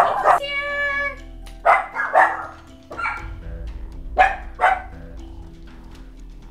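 A dog barking in about five short, sharp barks, with one longer drawn-out call near the start, over steady background music.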